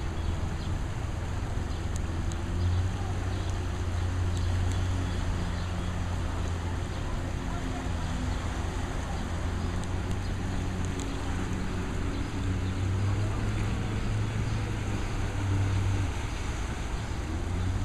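Outboard motor on an inflatable boat running steadily, a low hum that grows a little louder in the second half, over a constant hiss.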